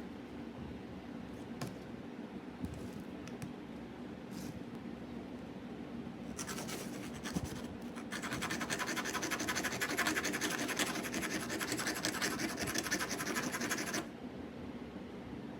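Fast, dense scraping strokes of a hand tool worked against metal, as in shaping a soldering bit. They start about six seconds in, grow louder, and stop abruptly near the end. A few light clicks come before them, over a steady low hum.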